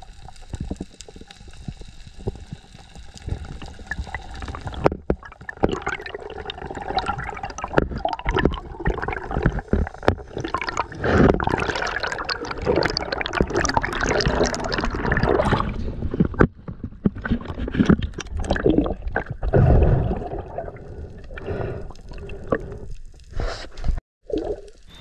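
Water gurgling and sloshing over an action camera's microphone during a spearfishing dive: softer for the first five seconds or so, then louder, uneven splashing and bubbling.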